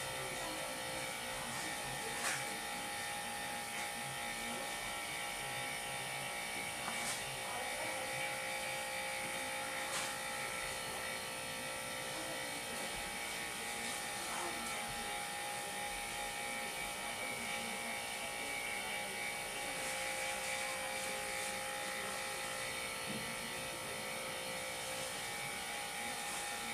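Steady buzzing hum of a small electric motor turning a display turntable, with a few faint clicks about 2, 7 and 10 seconds in.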